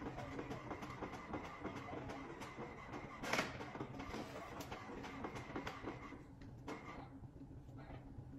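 Desktop printer running as it prints a photo, with a steady mechanical hum and fine ticking. There is one brief loud rustle about three seconds in as a printed sheet is pulled from the output tray. The printer goes quieter about six seconds in.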